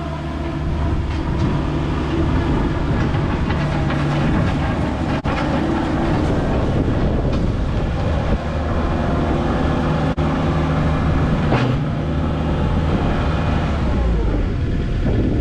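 A heavy machine's engine running steadily, with metallic rattling and clanking over it; the engine note drops near the end.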